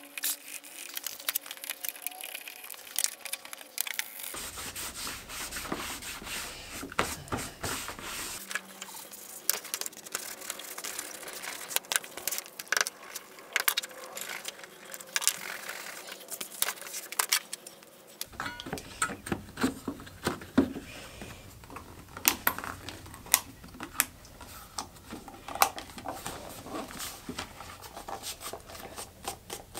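Hand work on a leather sheath: many sharp clicks and light taps from hand tools and small metal snap fasteners, mixed with the rub of tools and hands on the leather.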